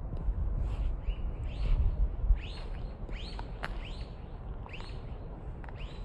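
A bird calling outdoors: a string of short, high chirps that each dip in pitch, about ten of them, one or two a second. A low rumble underlies them, heavier in the first half, with a sharp click in the middle.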